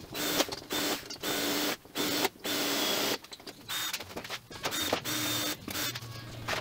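A handheld power tool, run against the rusty steel of the VW bus's front frame in about eight short bursts of up to a second each, starting and stopping with a steady whine while the frame metal is stripped.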